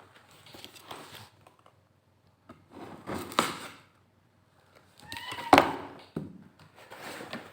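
A laptop box and its packaging being handled and opened: rustling and scraping in two spells, with a sharp knock a little past halfway and a few short squeaks just before it.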